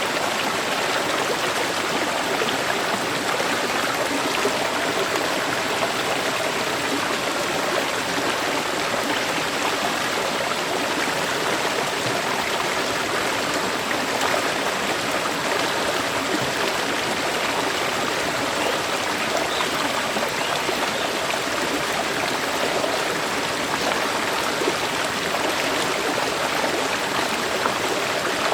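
A river flowing over rocks: steady rushing and gurgling of running water.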